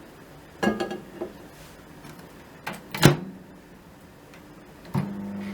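A microwave oven being loaded and started. A plastic container clatters down inside it under a second in, the door shuts with a sharp bang about three seconds in, and near the end the oven starts up with a steady hum.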